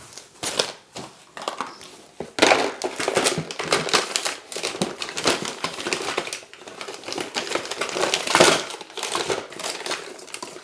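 Plastic packaging crinkling and rustling as it is handled, with many irregular clicks and taps.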